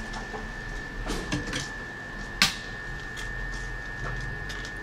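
Tweezers and small metal tools clicking and tapping against a metal phone-board holder, with one sharp click about halfway through, over a steady high-pitched whine and a low hum.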